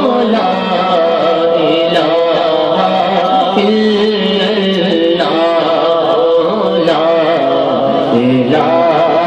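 A man singing a devotional Urdu song into a handheld microphone, drawing out long, wavering, ornamented notes with no clear words.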